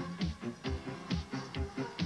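Background music with a steady, fast beat of about four beats a second.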